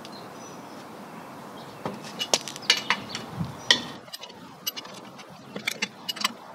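Lug wrench clinking on the lug nuts of a steel wheel as the nuts are cracked loose: a run of sharp metallic clicks about two seconds in, then lighter scattered ticks.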